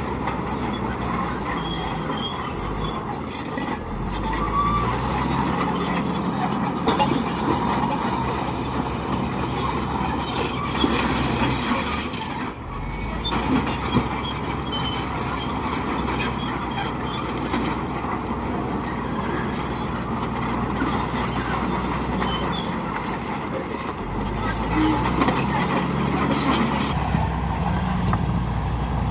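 Heavy diesel earthmoving machine running under load, its engine revving up twice, once a few seconds in and again near the end, with a few sharp metallic knocks in the middle.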